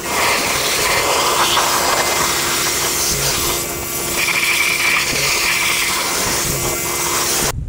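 High-pressure spray wand hissing steadily as it blasts water and mist over a truck's engine bay, with a faint hum under it. It cuts off suddenly near the end.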